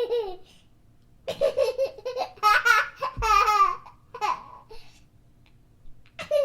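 A young child laughing in bursts of wavering, breathy giggles, the longest run between about one and four and a half seconds in, with another short burst near the end.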